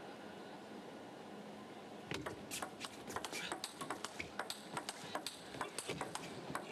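Table tennis ball being struck back and forth in a rally. After about two seconds of quiet arena ambience, sharp clicks of the ball off the rackets and the table come rapidly, several a second.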